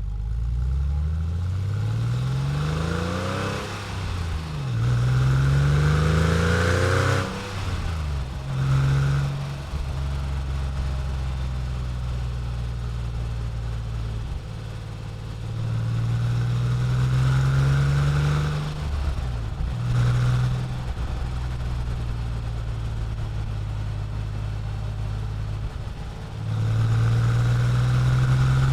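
The 3.6-litre air-cooled flat-six of a 1997 Porsche 911 Carrera 4S (993), fitted with the factory Motor Sound Package, heard from outside the car under hard acceleration. The revs rise and fall back at each upshift. This happens in several pulls, with stretches of steady engine note in between.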